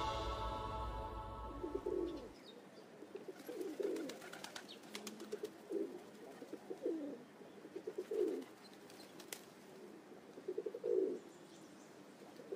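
Background music fading out over the first two seconds, then a pigeon cooing repeatedly, a low call every second or two, with a few faint clicks.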